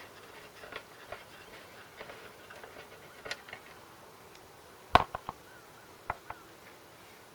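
Hand tools and metal parts clicking and tapping during the teardown of a small Briggs & Stratton mower engine: scattered light taps, then a sharp loud clack about five seconds in with two quick smaller clicks after it, and two more clicks a second later.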